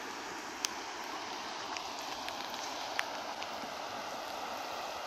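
Steady rushing of muddy floodwater in a swollen stream channel, with two short clicks.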